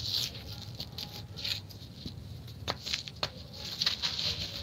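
Hands crumbling dry, gritty sand-and-cement lumps: grainy crunching and trickling in repeated swells, with three sharp cracks close together as pieces snap apart about two and a half seconds in.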